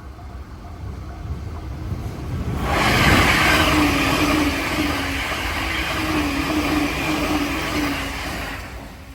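Electric train passing close by: a rumble builds, then a loud rush of wheels and running gear with a steady hum from about three seconds in, fading away near the end.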